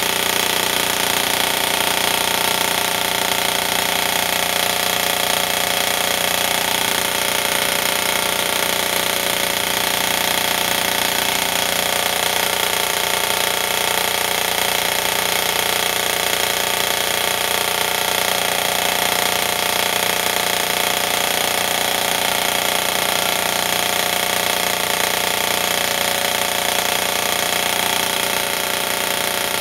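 Airsoft electric gun (G&G ARP 556) firing continuously on full auto, its motor and gearbox cycling without a break, steady in pitch and level.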